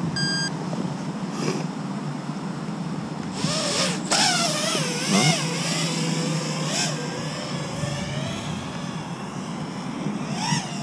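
FPV quadcopter's brushless motors and propellers whining, the pitch rising and falling quickly with throttle as it lifts off and flies, from about three seconds in. A short electronic beep at the very start, and wind noise throughout.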